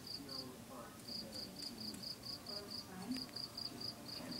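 Crickets chirping in a steady, high-pitched rhythm of about four chirps a second, with a short pause about half a second in.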